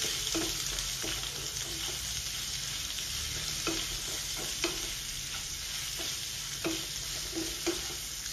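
Smoked pork slices sizzling in mustard oil in a nonstick frying pan, with a steady hiss. A wooden spatula stirs them, scraping against the pan now and then.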